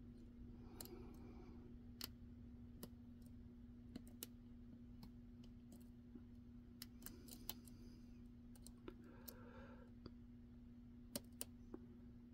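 Light, irregular clicks and ticks of a lock pick and tension tool working the pins of a five-pin pin-in-pin padlock, over a dozen over the stretch with the loudest about eleven seconds in. A steady low hum runs beneath.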